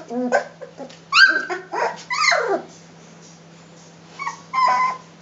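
Three-week-old Rhodesian Ridgeback puppies yelping and squealing at play, several short calls falling in pitch in the first three seconds, a lull, then two more short yelps near the end.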